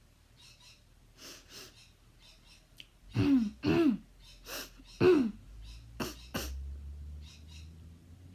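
A person coughing in a run of harsh, voiced coughs: two faint ones, then louder ones from about three seconds in, the loudest about five seconds in, ending with two short ones. Each cough drops in pitch, the repetitive cough of habit (somatic) cough.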